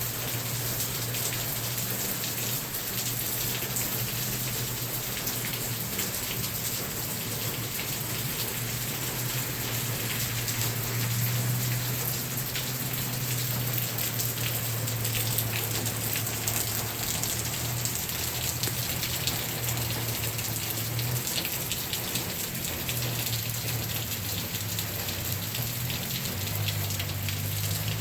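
Steady rain falling on surfaces, with many small drop hits, over a low hum.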